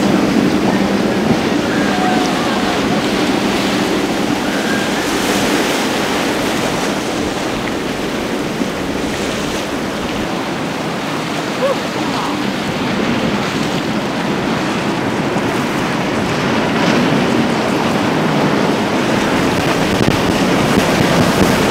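Rough inlet water and boat wakes splashing and churning, with steady wind noise on the microphone.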